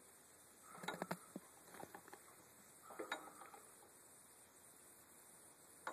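Near silence broken by a few faint clicks and light metallic taps, a cluster about a second in and another about three seconds in, from the shift fork and gears of a Yanmar YM2000 tractor's open gearbox being moved by hand.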